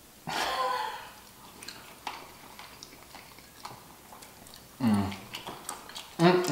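Eating sounds: faint clicks and smacks of chewing and handling food, with a short loud exclamation-like burst of breath and voice near the start. A pitched "mmm" hum begins near the end.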